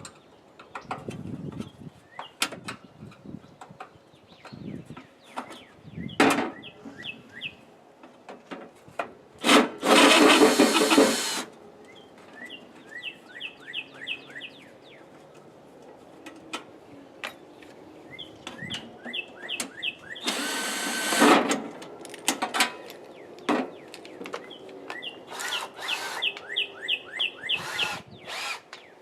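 A power drill-driver runs in two short bursts while a toaster oven is being dismantled for scrap, between sharp clicks and knocks of its sheet-metal parts. Runs of quick, rising squeaky chirps come in between.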